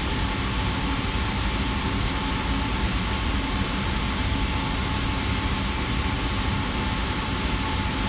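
Amana gas furnace running with its burners fired: a steady rush of air and low rumble from the blower, with a faint steady tone through it. The blower motor is drawing its normal current.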